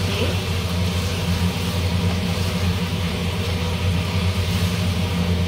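Kitchen range hood extractor fan running with a steady low hum and whoosh.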